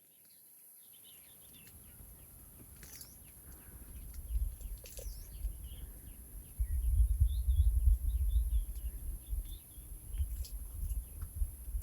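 Outdoor farmland ambience: small birds chirping now and then over a steady high-pitched insect drone, with a low gusty rumble on the microphone that grows stronger in the second half.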